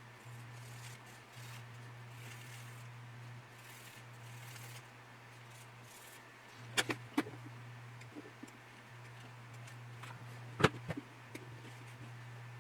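Hands working small plastic kit parts and hobby tools on a workbench: faint rustling, two sharp clicks about seven seconds in and a louder click near the end, over a steady low hum.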